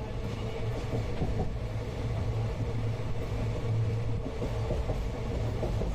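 Indian Railways passenger train running, heard from inside the coach: a steady low rumble with a constant hum and a higher steady tone over it.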